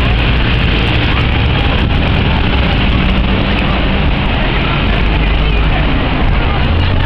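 Steady low rumble of wind and handling on a handheld microphone, over the general chatter of a crowd milling about.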